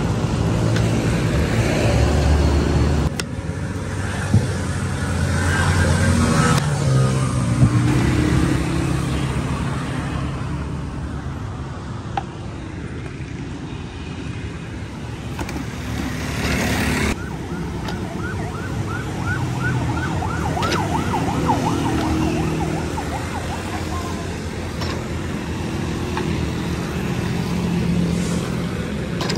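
Road traffic noise with engines running steadily. Partway through comes a quick run of short rising electronic chirps, like a siren or alarm.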